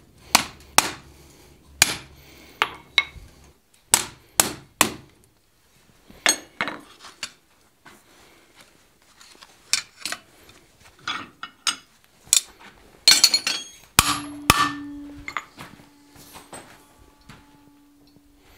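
Hand hammer blows and metal-on-metal clinks of blacksmithing on an anvil while a square steel bar is split with a hot chisel. There are about six sharp ringing strikes in the first five seconds, then scattered lighter clinks of tongs and tools, and a faint steady hum in the last few seconds.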